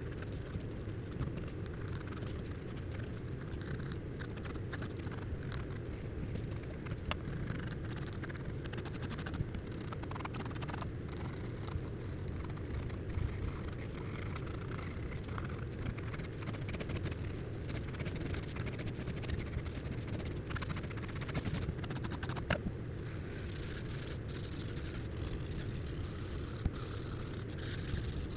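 Pencil and blending tools scratching and rubbing on drawing paper in continuous strokes, with a few brief sharp ticks, over a steady low hum.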